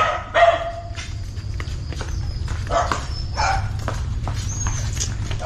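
A dog barking a few short times, over a steady low rumble.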